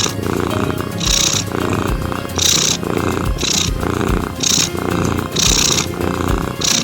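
Domestic cat purring continuously, rising and falling in a regular rhythm about once a second, with background music.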